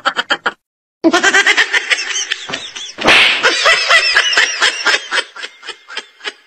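Laughter in quick, rhythmic bursts, breaking off briefly about half a second in and dying away near the end.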